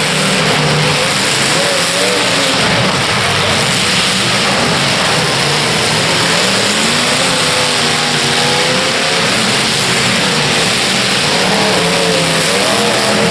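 Demolition derby car engines revving hard, several at once, their pitches rising and falling over a loud steady din.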